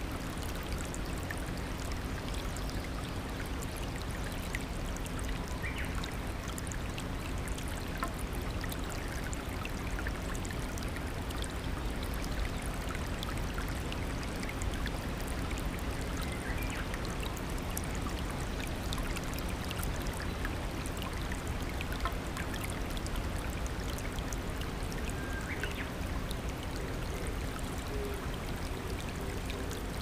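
Shallow rocky stream flowing and splashing over stones in a small cascade: a steady, even rush of water.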